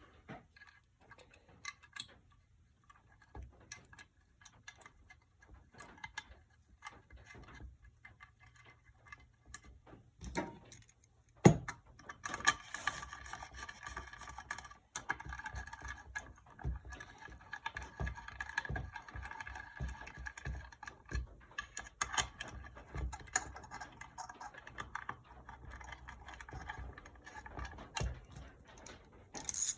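Light metallic clicks and clinks of small bolts and hand tools being handled and run into an engine case while a stator is bolted in, with one sharp knock about eleven seconds in.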